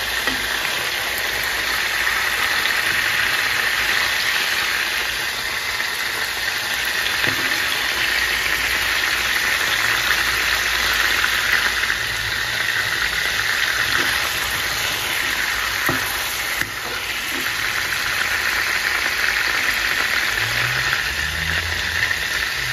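Prawns shallow-frying in hot oil: a steady sizzle, with a few light clinks of a slotted steel spoon on the pan and plate as the prawns are lifted out.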